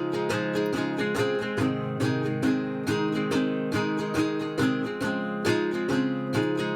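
Background music: a cheerful tune on strummed and plucked acoustic guitar with a quick, even rhythm.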